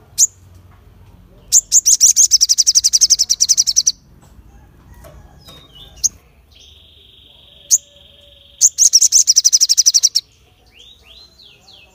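Male olive-backed sunbird (sogon) singing: two rapid, high trills of about ten notes a second, each lasting about two seconds, with single sharp chirps between them and a run of short falling notes near the end.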